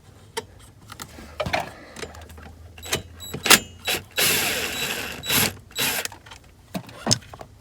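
Socket wrench on a 10 mm bolt: scattered metal clicks and knocks as the socket is fitted and turned, with about a second of continuous ratcheting roughly four seconds in.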